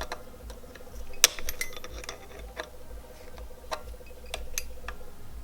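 Small metal clicks and ticks of snap-ring pliers working at a snap ring inside a transfer case's rear extension housing, scattered and irregular, with one sharper click about a second in.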